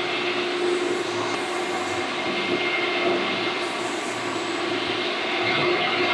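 Steady rushing background noise with a faint steady hum.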